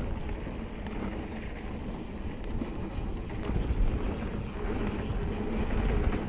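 Mountain bike rolling along a dirt trail, its tyres giving a steady low rumble that grows a little louder about halfway through, with wind buffeting the microphone.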